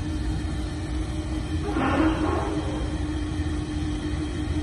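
Laska WW 130-2 industrial meat grinder running: a steady low rumble with a constant electric-motor hum, and a brief rushing swell about two seconds in.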